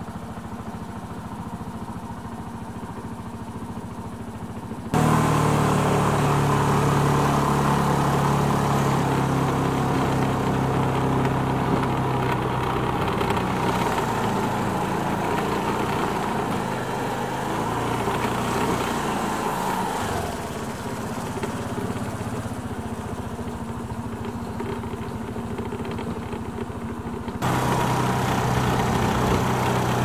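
An engine running steadily with a droning hum. It gets abruptly louder about five seconds in, drops back near the end, and varies a little in pitch midway.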